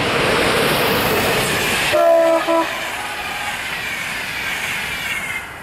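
PKP Intercity EU44 electric locomotive (Siemens Taurus) passing at speed with a passenger train, a loud rush of wheels and air. About two seconds in it sounds its horn in a short blast, broken briefly in the middle. The coaches then roll past more quietly with wheels clicking over the rail joints.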